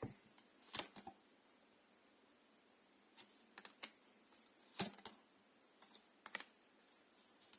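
Scattered light clicks and taps of tarot cards being drawn from the deck and laid on a table, irregular and a second or so apart, over near silence.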